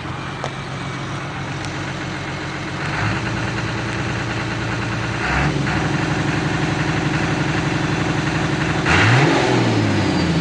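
Turbocharged engine running, its speed stepping up twice, then blipped sharply near the end and dropping back, with a faint high turbo whistle.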